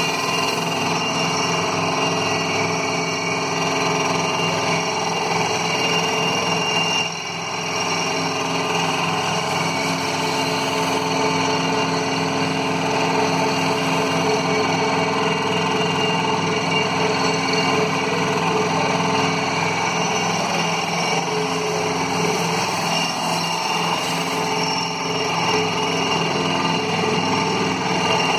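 Heavy construction machinery at a pile-driving site running with a steady drone of several held tones, dipping briefly about seven seconds in.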